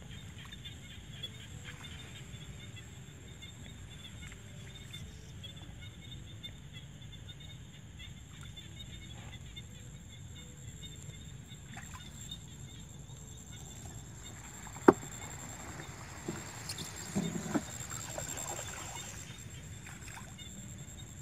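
Small wooden boat being poled through shallow marsh water, with quiet water sounds. One sharp knock about fifteen seconds in and a few softer knocks just after.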